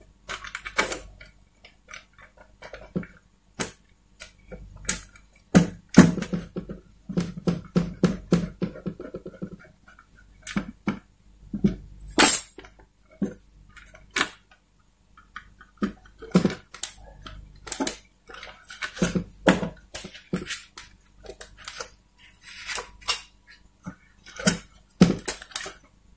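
Irregular clicks, taps and rattles of a screwdriver and hands working inside an opened LED TV, driving screws to hold a circuit board in place and handling its cables. A denser run of rattling knocks comes in the middle, with one sharp click a little later.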